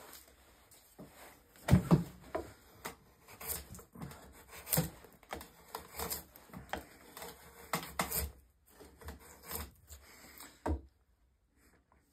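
Drawknife and spruce stick being handled at a wooden shaving horse: a series of irregular short wooden knocks and brief scrapes, the loudest knock about two seconds in.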